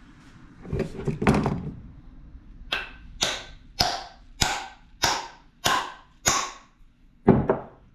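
Hammer blows driving a wooden wedge into the kerf of an axe handle to lock the head on: a couple of duller knocks about a second in, then seven sharp, evenly paced strikes about 0.6 s apart, and two quick strikes near the end.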